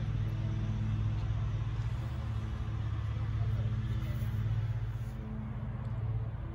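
A steady low engine hum, even in pitch and loudness.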